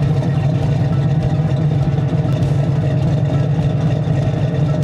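Tow truck's engine idling steadily, a low even drone with no change in speed.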